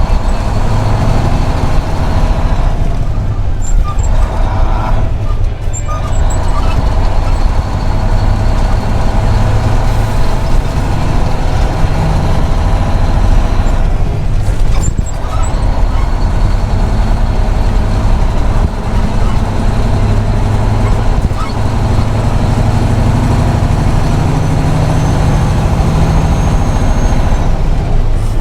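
Truck engine running under way, heard from inside the cab, a steady loud drone with a high whine that drops out briefly a few seconds in and again about halfway through.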